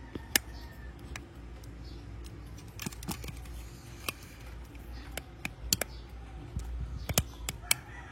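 Small plastic building-block parts of a knockoff Lego dinosaur figure clicking and knocking as they are handled and forced together, a stiff fit. Scattered sharp clicks, with a cluster around three seconds in and several more near the end.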